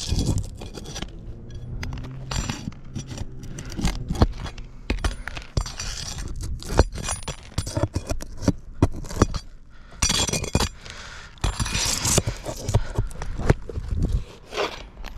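Old roofing nails being worked out of brittle roof shingles with a metal tool: irregular scraping, metal clinks and cracking, with a longer rough scraping stretch a little past the middle.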